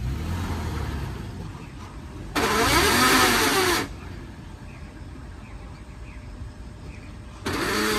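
Toyota Land Cruiser Prado starting up, then twice a loud harsh grinding noise with a wavering whine, each lasting about a second and a half, as the drivetrain is put under load. The noise is abnormal, and it is suspected to come from broken differential ring-and-pinion gears.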